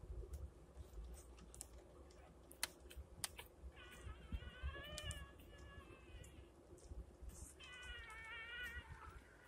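Newborn pitbull puppies crying: two thin, high-pitched, wavering squeals, one about four seconds in and a shorter one near the end. A few sharp clicks come before them.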